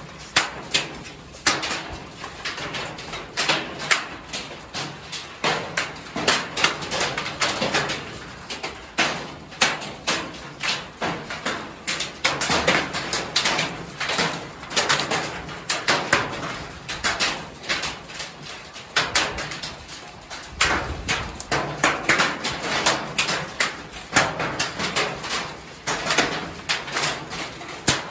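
Golf-ball-size hailstones falling and striking hard surfaces: loud, irregular impacts several a second, sporadic in strength, over a steady hiss.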